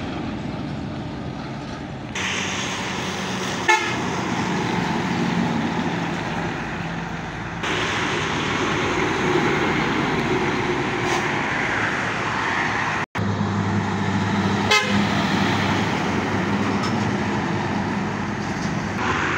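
Heavy trucks driving past on a highway: diesel engines running with tyre and road noise. The sound changes abruptly from one passing truck to the next, with a short sharp burst about four seconds in and another near fifteen seconds.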